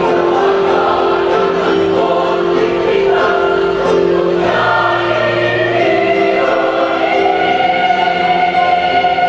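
Choir singing a march song, the voices moving over steady, held low notes underneath.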